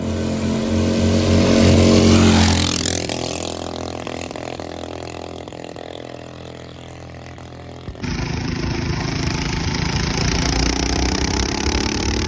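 Mini bike's Harbor Freight 212cc single-cylinder engine running, revving up and fading away a few seconds in. About two-thirds of the way through, an abrupt cut brings in a louder engine running steadily.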